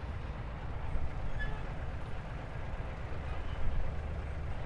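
Heavy diesel engine running with a steady low rumble.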